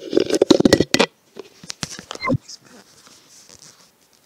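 Computer keyboard typing: a quick run of key clicks in the first second, then a few separate taps.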